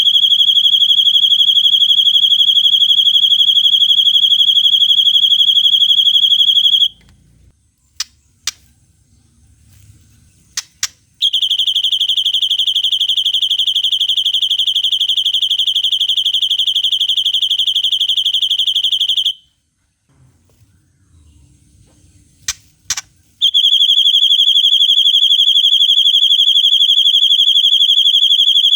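White-rumped shama (murai batu) giving long, rapid, high-pitched trills held at one steady pitch, the long cililin-style 'tembakan': three trills of several seconds each, separated by short pauses with a few sharp ticks.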